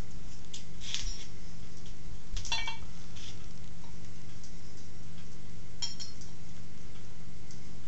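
Metal lathe parts clinking as they are handled, with a stepped metal pulley being fitted onto the headstock: a few short, spaced clinks that ring briefly, over a steady low hum.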